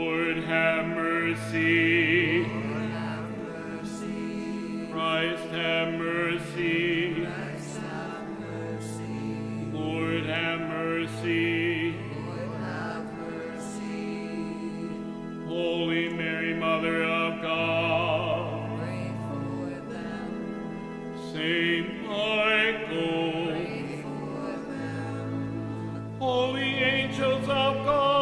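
Music: operatic singing with vibrato in phrases a few seconds long, over slow, sustained low chords.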